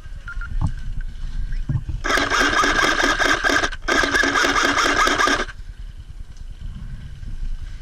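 Airsoft electric gun (AEG) firing two long full-auto bursts of about a second and a half each, separated by a brief gap, the gearbox cycling rapidly.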